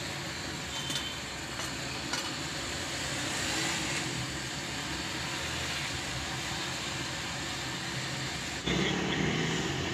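A heated blade scraping along the plastic seam of a lead-acid battery's lid, melting the plastic to seal the lid to the case, with a faint sizzle over steady background noise. Near the end a louder low hum comes in.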